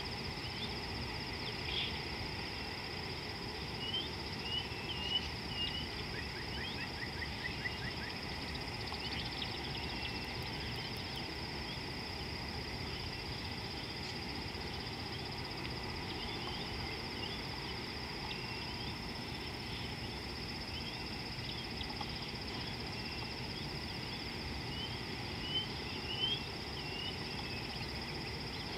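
A steady high-pitched insect drone over a low, even rushing noise, with scattered short bird chirps that cluster about four to six seconds in and again near the end.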